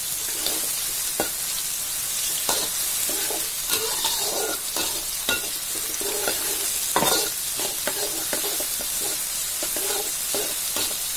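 Sliced shallots, garlic, chilies and tomato sizzling in hot oil in a metal wok while a metal spatula stirs them, scraping and knocking against the pan many times; the loudest knock comes about seven seconds in. The spices are being sautéed until they wilt and turn fragrant.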